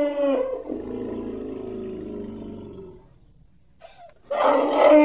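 Elephant trumpeting. A high call ends about half a second in and is followed by a lower, fading call lasting a couple of seconds; after a pause of about a second, another loud high call begins near the end.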